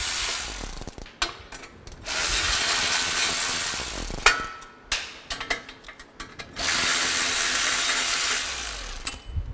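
Milwaukee M12 cordless electric ratchet running in three spells of about two seconds each, spinning out the 10 mm bolts of a factory brake dust shield. Small metal clicks and knocks fall between the runs.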